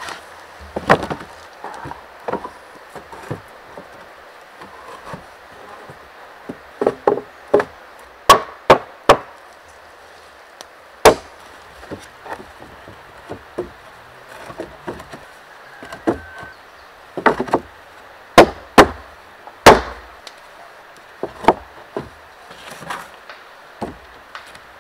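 Pallet-wood planks laid onto a wooden floor frame: irregular sharp wooden knocks and clatters as boards are dropped and knocked into place, the loudest coming in quick groups of two or three about a third of the way in and again near three quarters through.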